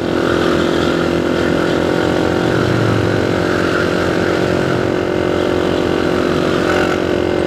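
Vehicle engine running at a steady speed, a constant even hum with road noise.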